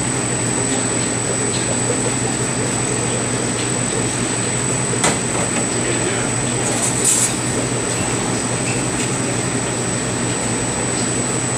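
Steady machinery drone with a constant high whine over an even low hum. It is broken by a single sharp tap about five seconds in and a brief clatter around seven seconds in.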